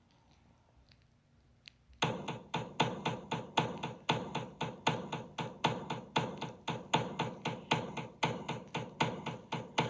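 Near silence for about two seconds, then music starts: a quick, even string of short plucked or tapped notes, about three or four a second.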